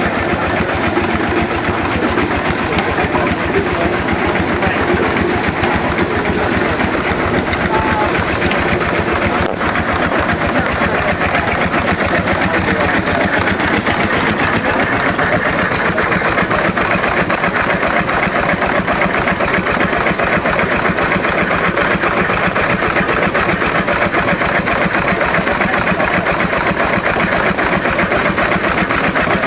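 Small vertical marine steam engine running at a fast, steady speed: a rapid, even mechanical beat under a continuous hiss of escaping steam.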